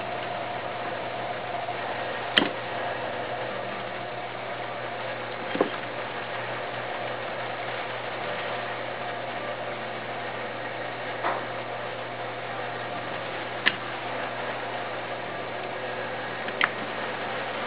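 Electric potter's wheel motor running with a steady hum, with a few sharp clicks or knocks spread through it.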